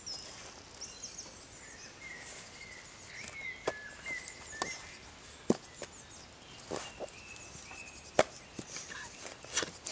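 Campfire crackling, with about five sharp pops, the loudest about halfway through and again a little past eight seconds in. Birds chirp and whistle faintly behind it.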